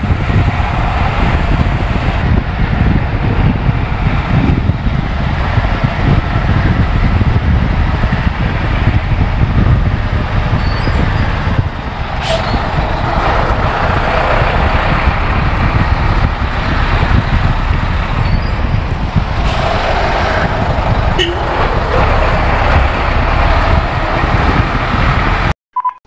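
Converted micro-bus motorhome driving at highway speed: a loud, steady low rumble of road and wind noise as it passes trucks, with a few short knocks and a sudden cut-off near the end.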